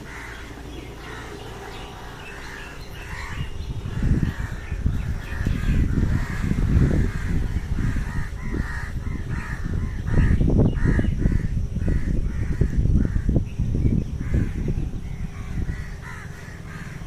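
Crows cawing over and over, many short calls from several birds. A loud, uneven low rumble comes in about four seconds in and dies down near the end, louder than the calls.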